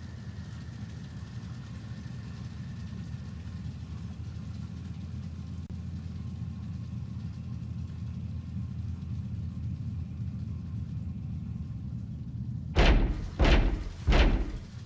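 A steady low hum of room tone, then three loud knocks on a door near the end, about two-thirds of a second apart.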